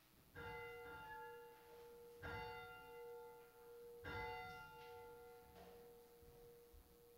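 A bell struck three times, about two seconds apart, each stroke ringing on with a clear pitched tone that slowly fades.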